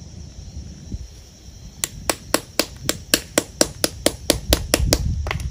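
Hammer striking a grommet-setting punch in a quick run of about fifteen sharp blows, about four a second, starting a couple of seconds in: a grommet being set into billboard vinyl.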